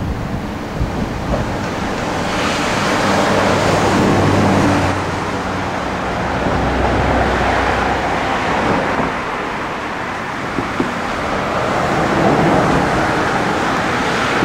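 Freight train rolling slowly away along the rails onto a steel truss bridge, a rushing, rumbling noise that swells and eases several times.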